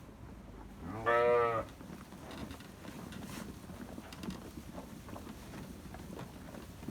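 A single low bleat from an adult sheep, about a second in and lasting well under a second.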